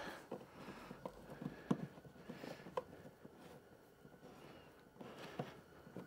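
Faint handling noises: a few scattered light clicks and knocks with soft rustling, from taped wiring being pushed back into place.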